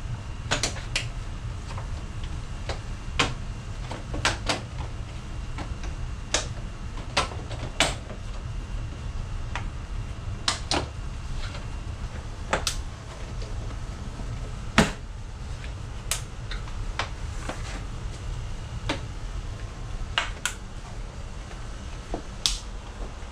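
Plastic grille and bumper trim pieces clicking and knocking as they are handled and their clips are snapped back into place: a dozen or more sharp, irregular clicks, the loudest about halfway through.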